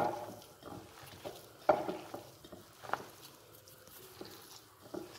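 A bare hand squeezing and kneading moist raw chicken mince with spices in a glass bowl: a few separate soft squelches and pats, spaced a second or more apart.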